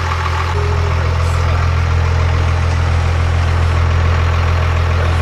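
Diesel pickup truck engine idling with a steady low drone, getting slightly louder about half a second in.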